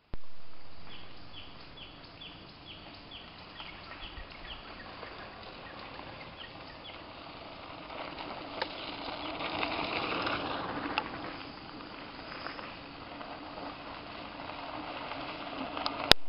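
A bird calling a quick run of about ten short, high, falling notes, then two more a couple of seconds later. Outdoor background noise swells and fades in the middle, and there is a sharp click near the end.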